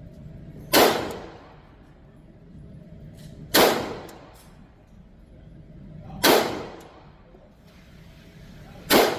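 Four single handgun shots fired slowly, about two and a half seconds apart, each a sharp crack with a short echoing decay.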